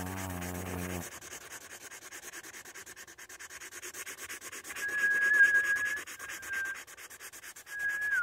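A Sharpie's felt tip scrubbing fast over paper in quick back-and-forth strokes, several a second. A low hummed voice note lasts about the first second. From about five seconds in a person whistles: one held note, a short second note, then a third near the end that drops in pitch.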